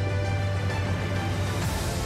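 Background music with sustained tones and a steady bass, with a rising swell of noise near the end.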